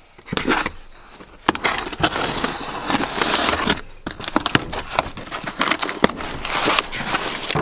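A parcel of parts being unpacked: packaging rustling and crinkling, with scattered clicks and knocks of handling, busier from about a second and a half in.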